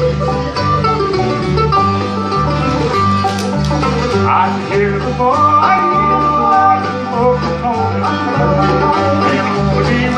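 A bluegrass band playing live, with banjo, mandolin, acoustic guitars and upright bass; the bass steps between two low notes on the beat, about twice a second, under the picked melody.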